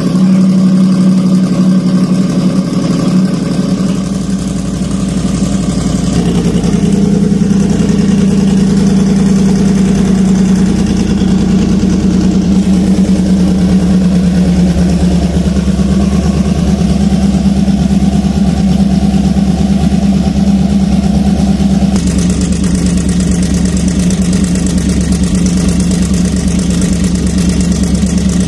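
Ford Gen 2 Coyote 5.0 V8 idling steadily just after a cold start on a MoTeC M1 engine computer, running smoothly without stumbling. The idle note shifts slightly about six seconds in and again about twenty-two seconds in.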